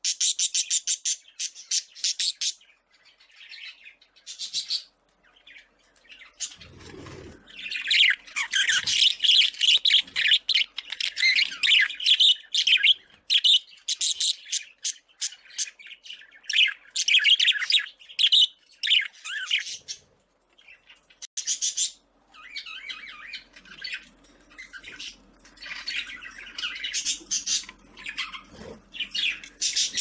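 Budgerigars chattering and squawking in rapid, high-pitched runs of calls, with a dull knock or two about seven to nine seconds in.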